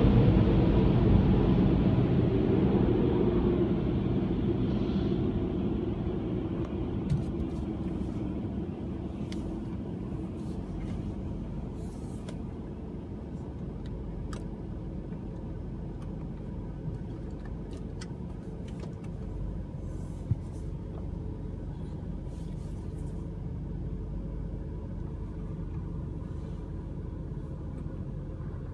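Automatic car wash machinery dying away over the first several seconds, leaving the car's engine idling as a steady low rumble heard from inside the cabin, with a few faint scattered clicks.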